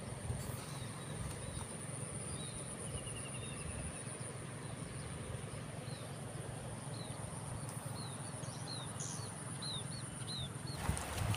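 Birds calling and an insect's steady high whine over a low rumble of wind on the microphone. A bird repeats short falling chirps through the second half. Near the end a louder rush of noise comes in and the whine stops.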